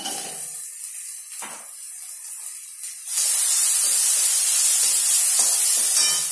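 Onion, ginger-garlic paste and chili powder frying in oil in a steel kadai, stirred with a spatula: after a few light scrapes, a loud steady sizzle starts suddenly about three seconds in.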